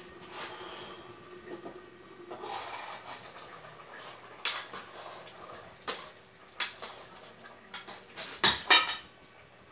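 Scattered short clinks and knocks, about half a dozen, with the loudest pair close together near the end.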